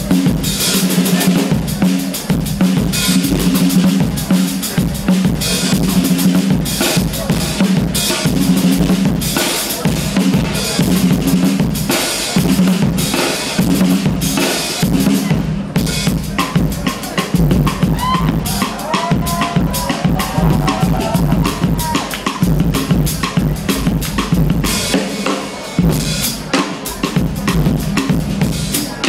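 Live drum kit solo: fast, dense strikes on bass drum, snare, toms and cymbals, played continuously and loud.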